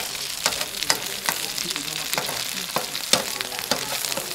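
Beaten eggs sizzling in hot oil in a wok, cooking like an omelette, with a metal skimmer clinking and scraping against the pan again and again.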